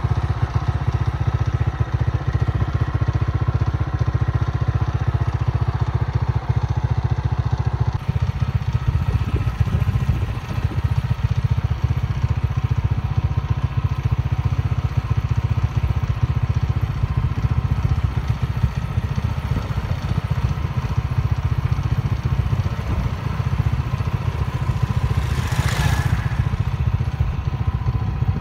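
Wind buffeting the microphone: a steady, loud low rumble, with one brief higher sound at about 26 s.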